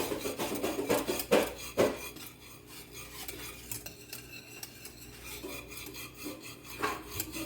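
A spoon stirring sauce in a saucepan, scraping and clinking against the pot, busiest in the first two seconds, then quieter with a few more strokes near the end. The sauce is being stirred until it thickens.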